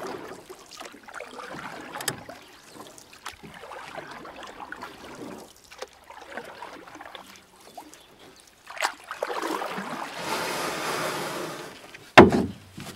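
Shallow floodwater splashing and swishing as push brooms and mops drive it across a hard floor, with scattered knocks. A louder stretch of swishing comes about three quarters in, and a single sharp knock near the end is the loudest sound.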